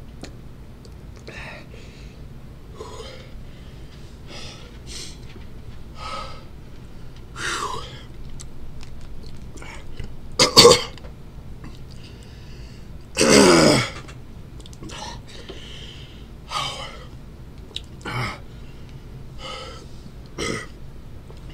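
A man coughing, clearing his throat and breathing hard while eating a super-hot chili candy bar, reacting to the heat. The loudest sounds are a sharp cough about ten and a half seconds in and a longer vocal sound falling in pitch about thirteen seconds in.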